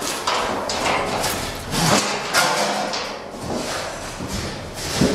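Irregular knocks, scrapes and clatter of objects being handled, loudest about two seconds in and again near the end.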